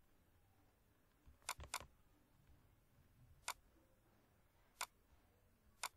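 Computer mouse clicking: a quick cluster of about three clicks, then three single clicks spaced a second or more apart.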